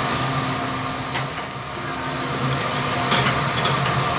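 Steady hiss and low hum of restaurant background noise, with a faint click about a second in and a slightly louder click about three seconds in.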